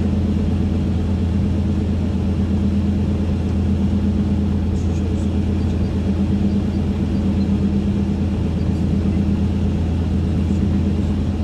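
Steady low rumble of a car cruising on a highway, heard from inside the cabin, with a constant hum running under it.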